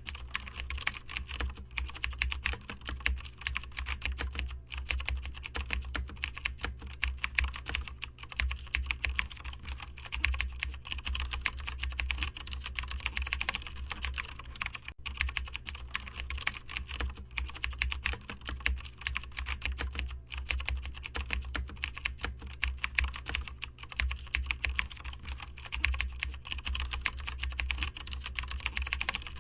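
Continuous typing on a computer keyboard: a dense, fast run of key clicks with only a few brief pauses, over a steady low hum.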